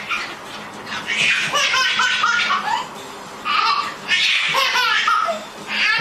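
A baby laughing hard in four bursts, the first and longest about a second in.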